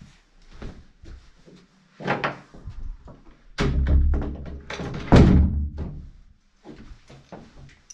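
A series of knocks and thuds from a door being handled and shut, the loudest hit about five seconds in.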